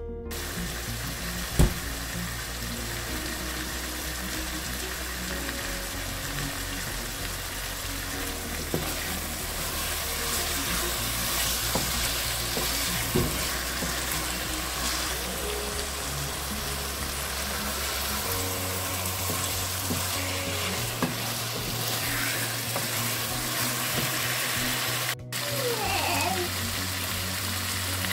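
Chicken liver curry sizzling in oil in a pot as it is stirred, with a few sharp knocks, the loudest about one and a half seconds in. Soft background music plays underneath.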